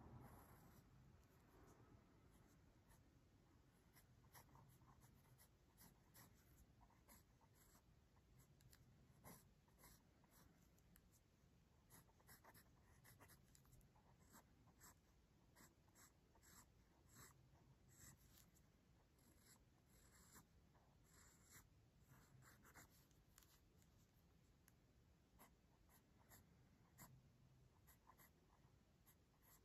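Faint scratching of a mechanical pencil's graphite on paper, in many quick, short, irregular strokes as a sketch is hatched in.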